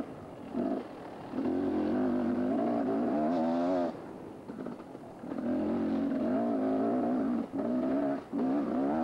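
Mini bike's small engine running under throttle in several on-and-off bursts, dropping back between them, with the pitch climbing sharply just before it backs off about four seconds in.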